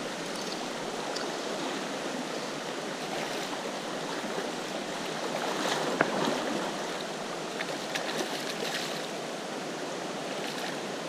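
River water rushing steadily over stones, with a few brief sharp sounds on top, the sharpest about six seconds in.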